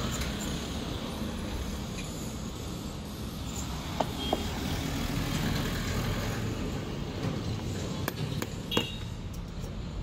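Light metal clicks and clinks as Maruti Suzuki Alto 800 starter motor parts are handled and fitted together on a workbench, with a couple of sharp ones about four seconds in and a few more later on, over a steady low background rumble.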